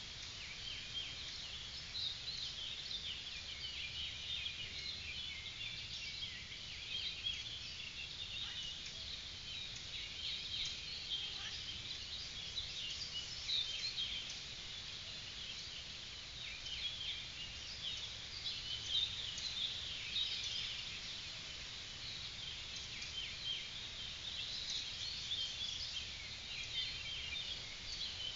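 Many birds chirping and singing at once, a dense run of short high calls with no pause, over a low steady background rumble.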